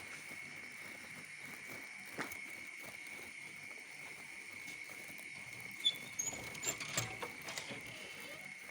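Quiet ambience of light drizzle: a faint steady hiss with a constant high-pitched whine. There is a single click about two seconds in, and a flurry of small knocks and short chirps a little past halfway.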